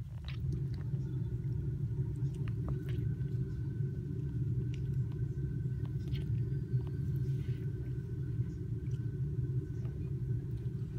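Domestic cat purring steadily right at the microphone, a low continuous rumble, with a few faint clicks of it chewing grass.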